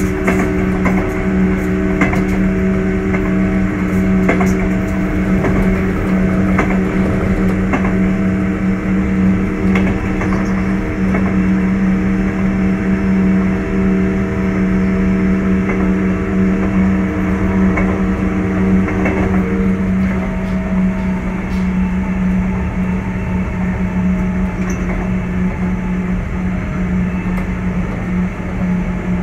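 Sotetsu 8000 series electric train running at speed, heard from inside the car: a steady drone from the traction motors and running gear, with rail-joint clicks. A set of higher tones in the hum stops about two-thirds of the way through.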